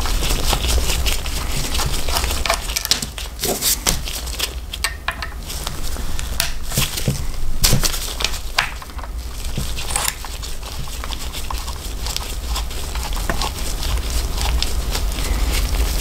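Small metal clicks and scrapes of a screwdriver working the blade screws of a vintage Wahl barber hair clipper, with handling rustle from gloved hands, over a steady low hum. The sharpest clicks bunch up in the middle.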